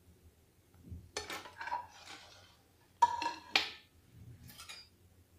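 Small stainless-steel plates clinking and scraping against a steel platter as they are picked up and set down: several sharp clinks, the loudest pair about three seconds in, one with a short metallic ring.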